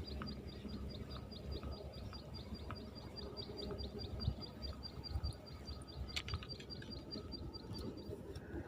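High, short chirps repeated evenly about four times a second from a small calling animal, pausing briefly near the end, over a low rumbling background noise, with a few clicks about six seconds in.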